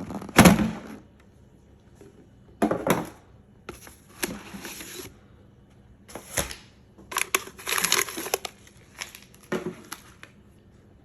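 Cardboard box and packaging being handled and opened: irregular crinkling, rustling and tearing noises with sharp knocks, the loudest about half a second in, and a dense run of them near the middle.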